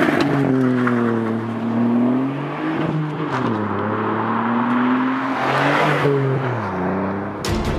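Ford Fiesta ST's 1.5-litre turbocharged three-cylinder engine accelerating hard through the gears, its pitch dropping at each gear change and climbing again. Around six seconds in, the pitch falls as the car passes close by. Music with a sharp beat starts just before the end.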